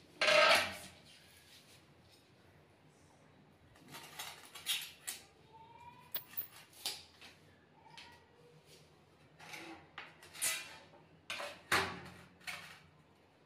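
Ceramic wall tiles clatter and scrape on a concrete floor as they are handled, and a steel ruler is laid across a tile to mark a cut, with the loudest clatter at the start. A cat meows faintly a couple of times in between.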